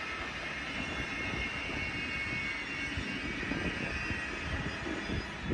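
A train running past on the tracks: a steady rumble with a faint whine over it.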